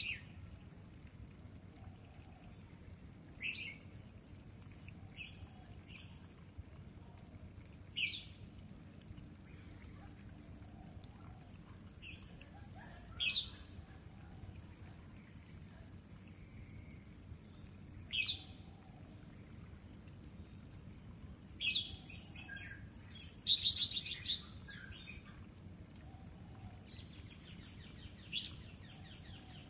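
Red-whiskered bulbuls (jambul) calling: short, sharp chirps every few seconds, a busier burst of calls a little after the middle, and a rapid buzzy chatter near the end, over a steady low rumble of background noise.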